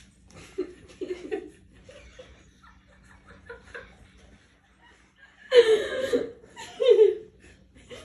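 People laughing: a few soft chuckles in the first second or two, then two loud bursts of laughter about five and a half and seven seconds in.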